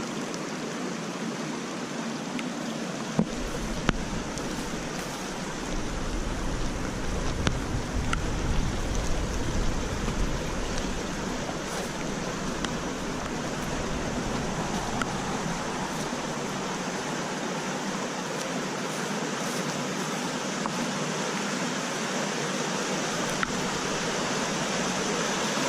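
Floodwater in a rain-swollen creek rushing steadily, with a few faint clicks and a low rumble between about three and eleven seconds in.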